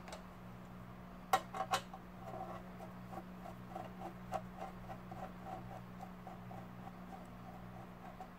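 A screwdriver backing a cover screw out of a computer power supply's sheet-metal case: a few sharp metal-on-metal clicks about a second in, then light, regular ticking, about four ticks a second.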